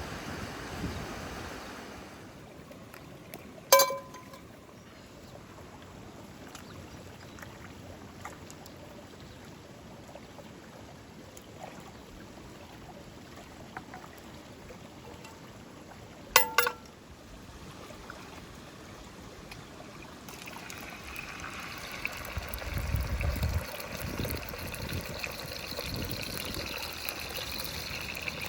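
Two sharp, ringing clinks, about four seconds and about sixteen seconds in, over a faint steady background; from about twenty seconds in, liquid trickling and pouring, growing louder toward the end.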